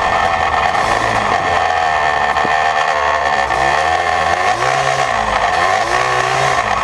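Yamaha Blaster's 195cc single-cylinder two-stroke engine running through an FMF Fatty expansion pipe and Power Core 2 silencer, its revs rising and falling several times in the middle.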